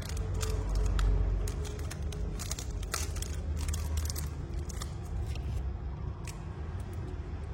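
Scattered sharp clicks and taps from a brass Zippo lighter being handled, over a steady low rumble.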